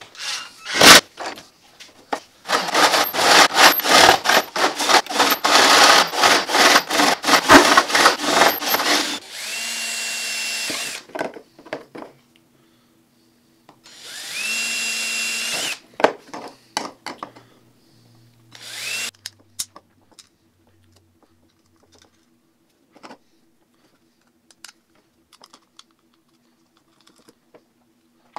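Cordless drill/driver driving screws into a plywood lid, loud and uneven for several seconds. Then the drill runs steadily three times in shorter bursts as it bores through a white PVC pipe elbow, followed by light clicks of small parts being handled.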